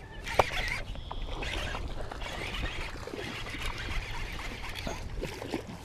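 Water splashing in stretches as a hooked largemouth bass thrashes at the pond's surface while it is being played in, with small ticks and one sharp click about half a second in.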